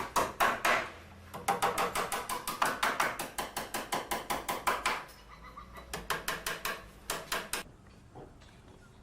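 Hammer blows in fast, even succession, about five a second, during wooden house construction. After a short pause about a second in, a loud run of strikes follows; the blows turn softer about five seconds in and stop near the eighth second.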